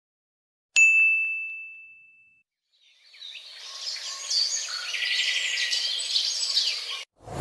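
A single bright ding, like a small bell or chime struck once about a second in, ringing out for about a second and a half. Then a chorus of birds chirping fades in from about three seconds and cuts off suddenly near the end.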